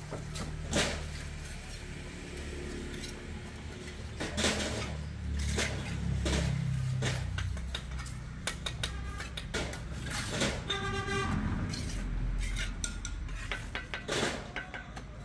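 Dishes and utensils being handled: scattered knocks and clinks, one ringing briefly about ten seconds in, over a low steady rumble.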